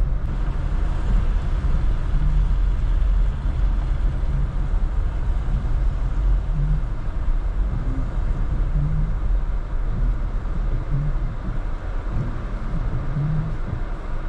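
Inside a moving car: steady low rumble of engine and road, with tyre hiss on wet pavement. It eases slightly near the end as the car slows to a stop in a queue.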